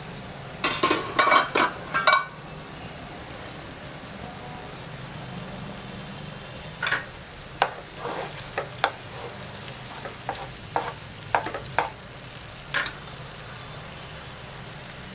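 Okra and dried prawns frying in a non-stick pan, stirred with a spatula: a dense clatter of spatula scrapes and taps on the pan about a second in, then scattered single taps from about seven to thirteen seconds in, over a steady low hum.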